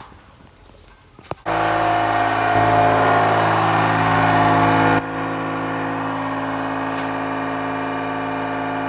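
An engine running steadily, with no revving. It starts abruptly about a second and a half in, and changes abruptly about five seconds in to a slightly quieter, steady running sound.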